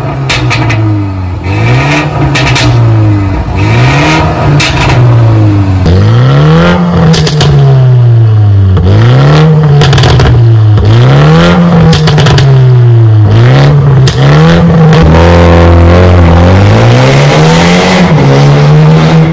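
BMW 330i (G20)'s B48 2.0-litre turbocharged four-cylinder revved over and over through a Stone valvetronic cat-back exhaust, first with the exhaust valve closed and then with it open, with pops and crackles between the revs. Near the end the car accelerates away.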